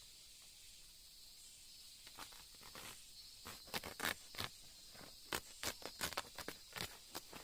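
A steady high insect chorus of tropical forest, with irregular dry crackles and rustles starting about two seconds in and coming more often toward the end.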